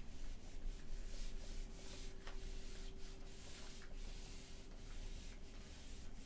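Whiteboard duster wiping marker off a whiteboard: repeated dry rubbing swishes, a couple of strokes a second, as the board is erased.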